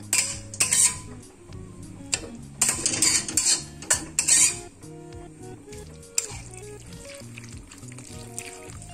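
Spatula scraping and clinking against a steel pan while grated radish batter is stirred together with its diced toppings, a run of strokes in the first half; background music underneath throughout.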